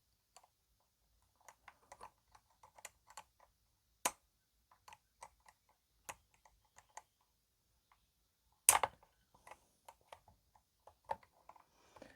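Scattered light clicks and taps of hand tools and small metal parts being handled on a workbench during a chainsaw teardown, with a sharper click about four seconds in and a louder clack near nine seconds.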